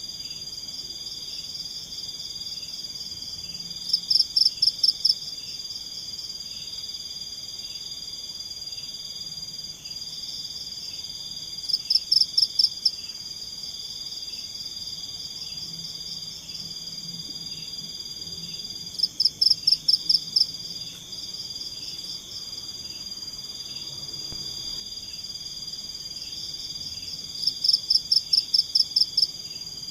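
Tropical night-time forest chorus of calling insects and frogs: a steady high-pitched drone over a regular pulsing chirp. Four times, about every eight seconds, a louder burst of rapid pulsed calls rings out, each lasting about a second.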